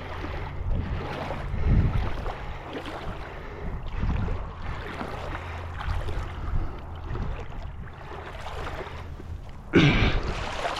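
Wind buffeting the microphone outdoors, in gusts over a low steady hum, with a louder gust near the end.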